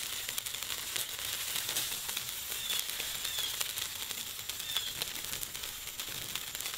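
Rice vermicelli frying in oil in a wok, a steady sizzle with fine crackling, as one side is pan-fried to brown.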